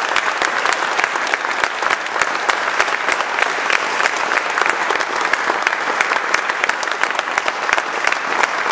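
Audience applauding: dense, steady clapping from many people, louder than the speech before it.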